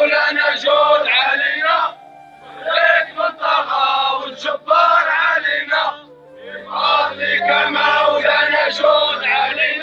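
Male voices chanting in long, wavering sung phrases, breaking off briefly about two seconds and again about six seconds in.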